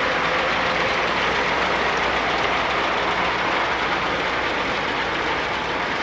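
Antique tractor engines running steadily.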